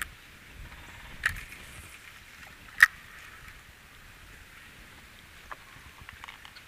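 Two sharp clicks about a second and a half apart, the second louder, from a fishing rod and spinning reel being handled in a kayak. A few fainter ticks come near the end over a faint steady outdoor hiss.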